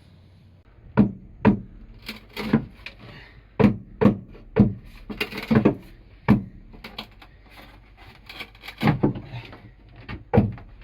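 An irregular series of sharp knocks and thumps with some rubbing in between, starting about a second in.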